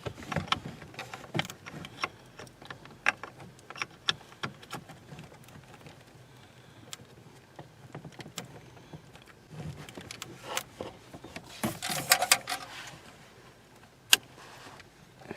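Scattered clicks and plastic rattling of wiring harness connectors being handled and plugged into a car's climate-control panel. There is a denser patch of rattling about two-thirds of the way through and a single sharp click near the end.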